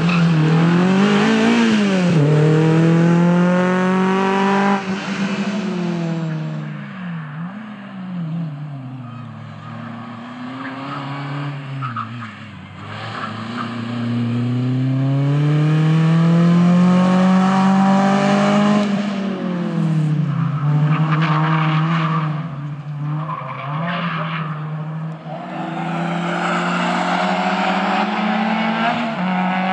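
Three rally cars pass one after another, small front-wheel-drive hatchbacks including a Renault Clio and a Peugeot 206. Each engine revs hard, drops in pitch as the driver lifts or shifts, then climbs again as the car pulls away.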